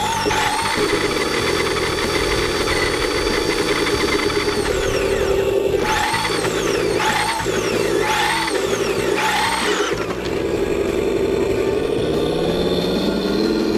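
Tamiya Unimog 425 RC truck on a CC-01 chassis: the electric motor and drivetrain whine, held high for about four seconds under steady throttle and then falling away, then rising and falling four times in quick throttle bursts. Underneath runs the steady simulated engine drone from its onboard RC engine sound unit.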